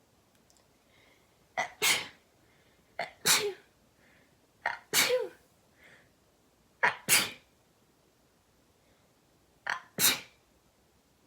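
Five human sneezes in a row, spread over about eight seconds, each a quick sharp catch followed at once by the louder main burst.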